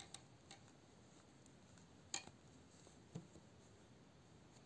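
A few faint clicks of knitting needles as stitches are knit, over near silence; the clearest come about two and about three seconds in.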